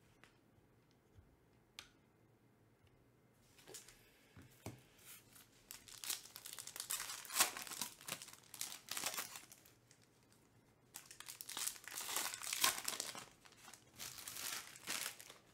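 Foil wrapper of a Topps Pristine baseball card pack being torn open and crinkled by hand, in two long stretches of crackling after a few quiet seconds with one light tap.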